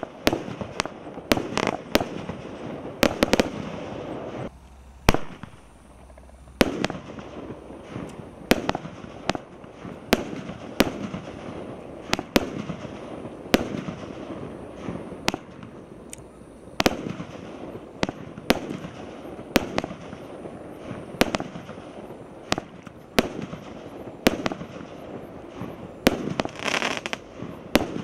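Multi-shot consumer firework cake firing a run of aerial shots: sharp bangs, about one or two a second, over crackling from the bursting stars. There is a brief lull about five seconds in, and the crackle thickens near the end.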